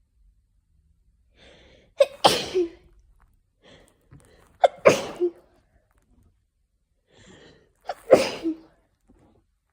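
A person sneezing three times in a row, about three seconds apart, each a sharp 'ha-choo' with a faint drawn-in breath just before it: a hay fever sneezing fit.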